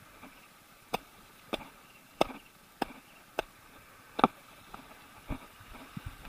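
Footsteps on a gravel-and-pebble beach: a short sharp crunch about every 0.6 seconds, the last few softer.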